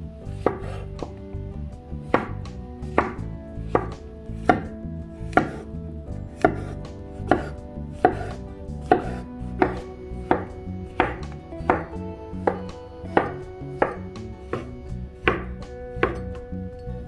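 Knife slicing button mushrooms on a bamboo cutting board: a steady run of sharp knocks, about three every two seconds, as the blade cuts through and strikes the board.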